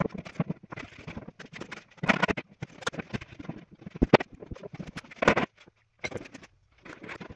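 Irregular knocks and clatter of timber and tools being handled as a plywood panel is fitted into a wooden bench frame, with a few sharper knocks. The sound drops out briefly about six seconds in.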